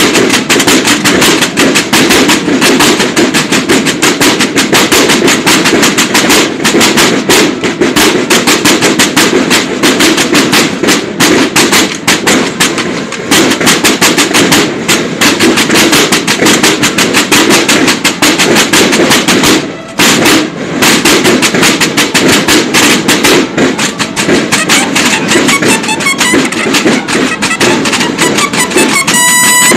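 Snare drums of a banda de guerra (drum and bugle corps) playing a fast, loud drum cadence of rapid rolls and strokes, with one short break about two-thirds through. The bugles come in right at the end.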